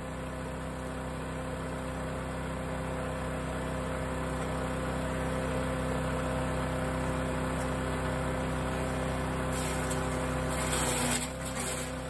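Small four-stroke gasoline engine of a mini wood chipper running steadily at speed. Near the end there is a brief, louder rough burst as small twigs are fed in and chipped, and the engine note dips slightly under the load.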